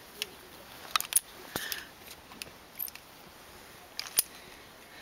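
Iron safety chains and a harness carabiner clinking and rattling against each other as a climber grips and pulls along them, in a handful of scattered metallic clicks, the sharpest a little after four seconds in.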